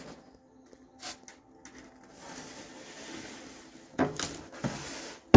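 Hand-work on a foam wing panel being taped: faint rustling, then two short, loud rasping bursts, one about four seconds in and one at the very end.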